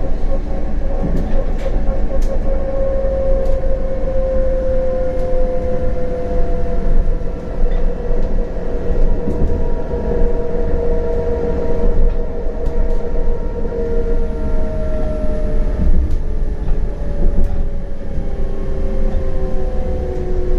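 CAF Urbos 100 low-floor tram running, with its traction motors' electric whine gliding slowly down in pitch over a steady rumble from wheels on rail and a few sharp clicks.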